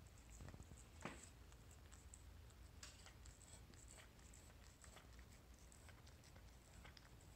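A cat's tongue licking a ceramic plate: faint, quick, irregular ticks and clicks, with one slightly louder click about a second in.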